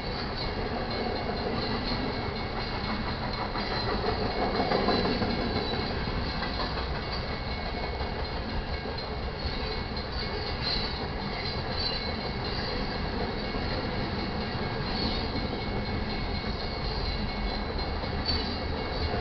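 Manifest freight train rolling past, a steady rumble of railcar wheels on the rails that swells briefly about five seconds in.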